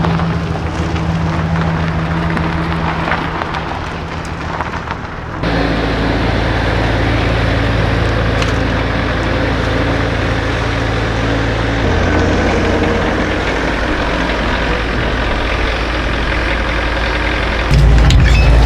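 Diesel dually pickup truck engine running steadily, its low drone shifting abruptly a few times.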